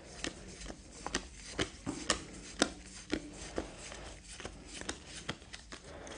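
Board game cards being handled and set down on a table: a string of light, irregular taps and flicks, about one or two a second.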